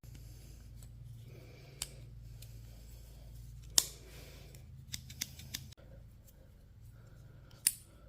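Sharp little metal clicks and snaps from a Roxon multi-tool's folding scissors being handled and worked, a few irregular clicks several seconds apart, the loudest about four seconds in, over a faint steady low hum.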